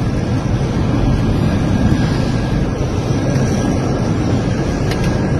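Steady, loud low rumble of an airliner's engines and rushing air, heard inside the passenger cabin.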